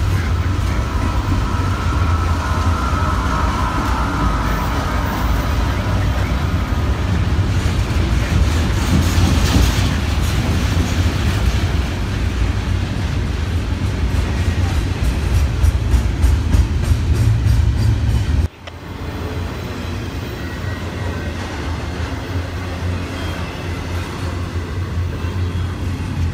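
Double-stack intermodal freight cars rolling past: a steady rumble with wheel clatter on the rails. About two thirds of the way through, the deep rumble drops away abruptly and the passing train sounds lighter.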